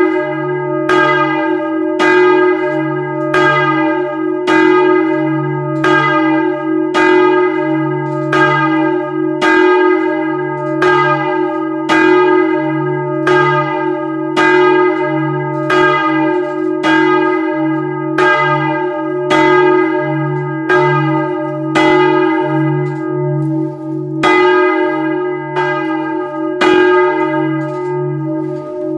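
Swinging church bells ringing the call to prayer, heard up close inside the bell tower: the clapper strikes about three times every two seconds, and each stroke rings on over a deep hum.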